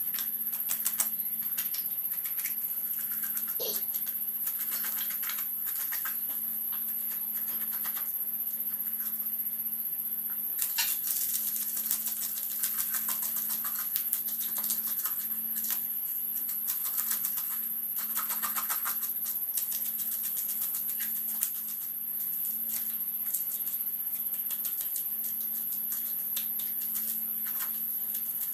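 A knife scraping the scales off a snakehead (murrel) fish: a dense, rapid scratching and clicking that grows busier about a third of the way in.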